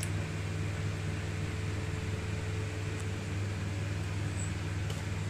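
Steady low electrical hum with an even faint hiss, like a small motor or fan running, and no distinct event.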